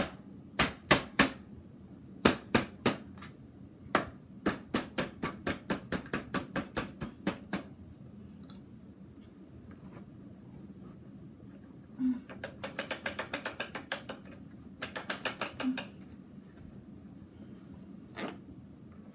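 Runs of sharp taps and knocks as a clogged vacuum cleaner is poked and knocked to clear debris out of it. The first runs come about two to four a second; after a pause, faster runs of taps follow, then one last knock near the end. A faint steady hum lies underneath.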